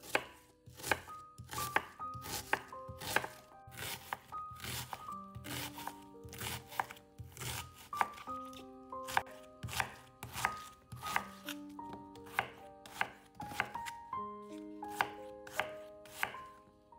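Knife chopping food on a cutting board in quick, slightly uneven strokes, about two to three a second, over soft melodic background music with held notes.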